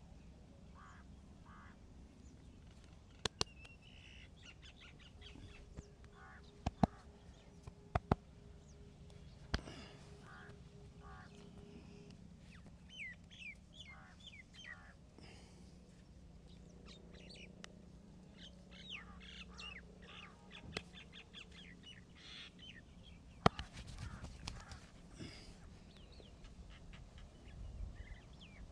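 Birds chirping and calling in the background, broken by several sharp cracks. Two come close together early on, a few more follow a few seconds later, and a single loud one comes late; these cracks are the loudest sounds.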